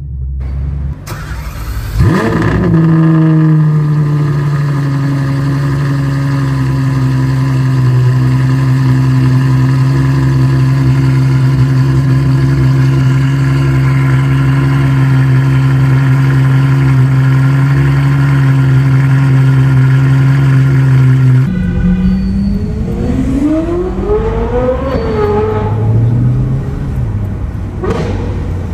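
Ferrari 812 Superfast's V12 firing up with a sudden loud flare about two seconds in, then idling steadily. Near the end it revs up in rising sweeps as the car accelerates away.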